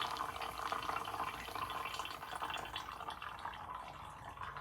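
Engine oil being sucked through a hose into a vacuum oil-extractor canister: a continuous, irregular trickle of liquid filling the container.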